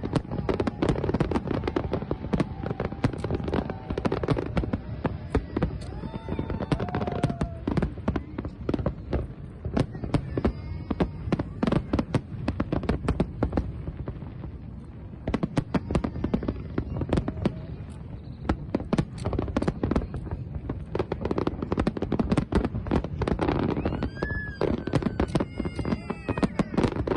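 Fireworks display: a dense, continuous run of sharp bangs and crackles, easing briefly around the middle before picking up again.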